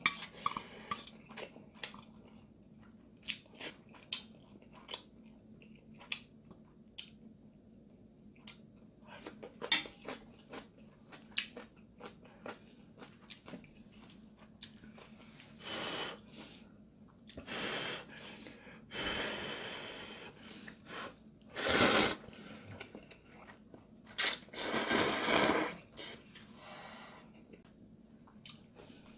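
A person eating instant ramen noodles: chewing with many small wet clicks, then several loud slurps of noodles lasting a second or two each, the loudest two in the last third.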